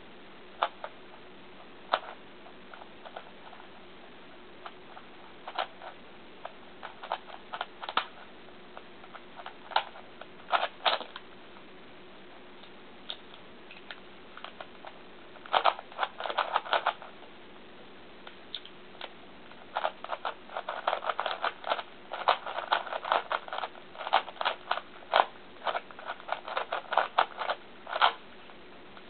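A Sheng En Type F-II 3x3x3 puzzle cube being turned by hand, its plastic layers clicking. The turns come one at a time at first, then in a short fast flurry past the middle and a longer run of rapid turns near the end, as in solving.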